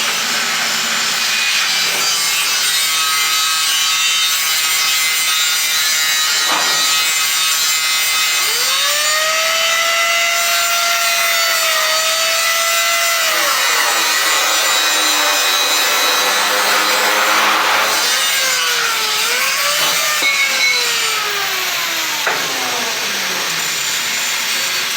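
A power tool cutting or grinding metal with a steady, loud rasping hiss. A motor's whine rises about eight seconds in, holds, then drops away, and later falls in pitch a few more times.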